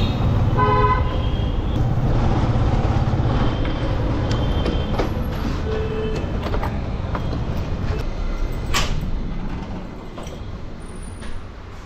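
Road traffic: a motor vehicle's engine rumbling steadily, with a single horn honk about a second in. The rumble fades toward the end, and a few faint knocks and clicks are heard.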